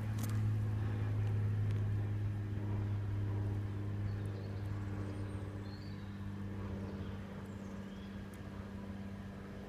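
Steady low hum of an engine running at idle, slowly growing quieter, with a few faint bird chirps.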